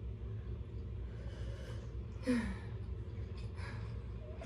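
A person breathing hard and sniffing over very spicy noodles, with one short falling gasp about two seconds in.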